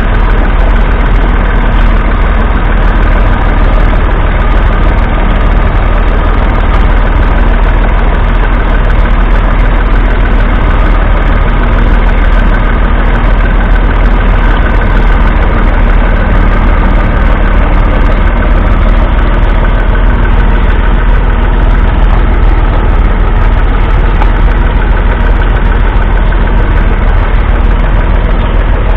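Massey Ferguson 135's 2.5-litre three-cylinder Perkins diesel engine running loud and steady under load, pulling a two-furrow mounted plough through the soil.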